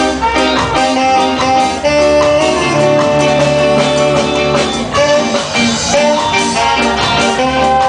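Live reggae band playing an instrumental passage: electric guitars, drum kit and held horn notes over a steady beat.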